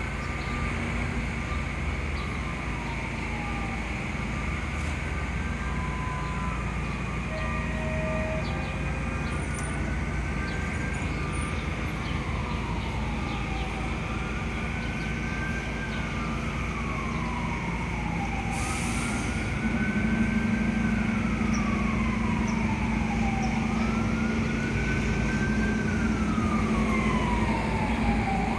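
Fire apparatus siren on a slow wail, rising quickly and falling slowly about every five seconds, over the low drone of the idling fire truck engine. About two-thirds of the way through there is a brief hiss, and the engine drone grows louder.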